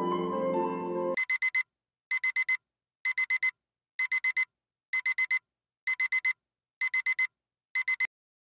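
Smartphone alarm beeping in bursts of four quick, high beeps, about one burst a second, until it is switched off about eight seconds in. Soft plucked music fades out in the first second, just before the beeping starts.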